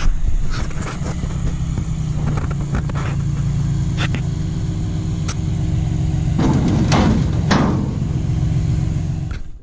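A motor vehicle's engine running steadily, with a rushing swell of noise about two thirds of the way in. It cuts off suddenly just before the end.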